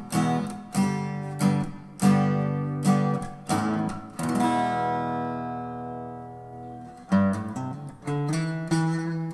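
Outro music: acoustic guitar strumming chords. About halfway through, one chord is left to ring and fade for a couple of seconds, then the strumming picks up again.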